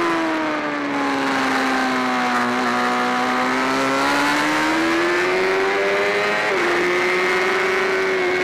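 BMW S1000RR inline-four engine at high revs, heard onboard with wind rush: the note falls as the bike slows through a corner in second gear, then climbs under hard acceleration. About six and a half seconds in it drops sharply on an upshift to third and starts climbing again.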